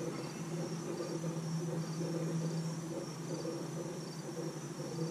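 Insects chirping: short high chirps repeating at a steady rhythm, over a low steady hum.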